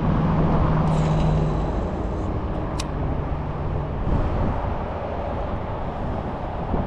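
Road traffic: a vehicle's engine hum passing and fading over the first couple of seconds over a steady bed of outdoor traffic noise, with one sharp click a little before the middle.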